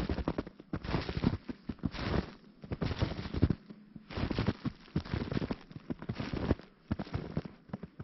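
Footsteps crunching through snow, about one step a second, each step a crackly crunch of packed snow underfoot.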